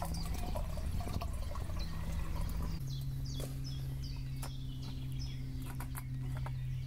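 Water poured from a bottle into a stainless steel mug, a steady splashing pour for about three seconds that then stops. After it come light clicks and knocks over a steady low hum, with short high chirps from birds.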